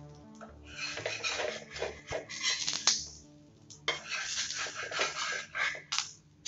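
A flat spatula scraping under an adai on a hot dosa tawa to loosen it for flipping. There are two stretches of scraping, with a few sharp taps of the spatula against the pan.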